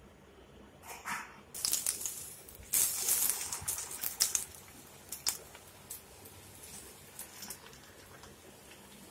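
Onion pakoda mixture dropped by hand into hot oil in a kadai, sizzling: a brief hiss about a second in, then a loud sizzle with sharp crackles and pops that dies down to scattered pops after a few seconds.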